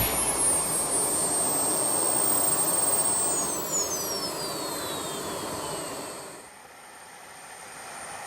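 Small turbine engine of a radio-controlled model jet running with a high whistling whine that falls in pitch over a few seconds. The sound drops away about six seconds in.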